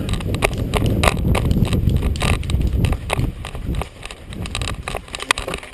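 A player running in airsoft gear: quick, irregular footfalls and knocks with gear rattling, over a heavy rumble of body-worn-microphone handling. It is loudest in the first three seconds and eases off after about four.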